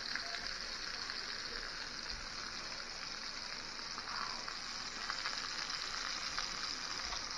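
Sausages frying in oil in a cast-iron skillet: a steady sizzling hiss with light scattered crackles.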